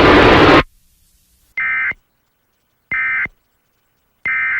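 Emergency Alert System end-of-message data bursts: three short, identical, shrill electronic chirps of two-tone digital data, a little over a second apart, marking the end of the alert. Before them a loud hiss cuts off abruptly about half a second in.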